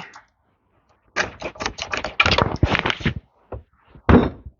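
Metal tools and parts being worked on a tractor's lever assembly: a quick run of clicks and rattles, then one louder knock just after four seconds.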